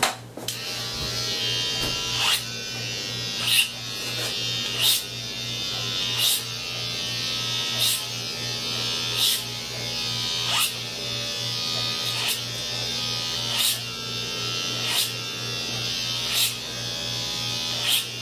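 Electric hair clipper buzzing steadily while trimming short hair around the ear, with a brief louder pass about every one and a half seconds.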